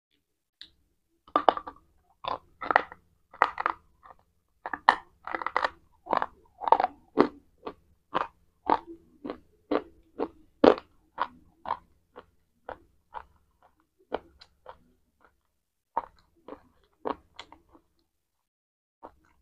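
Biting into and chewing a hard white chalk-like bar: a run of sharp, brittle crunches about one or two a second, thinning to scattered softer crunches after the middle.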